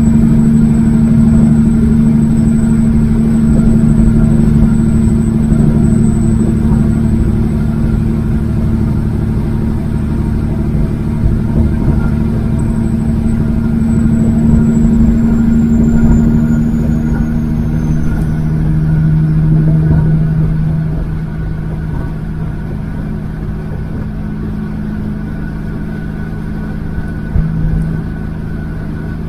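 Semi truck engine droning steadily at road speed, heard from inside the cab, pulling a heavy load. About two-thirds of the way through it eases off and drops to a quieter, slightly lower drone.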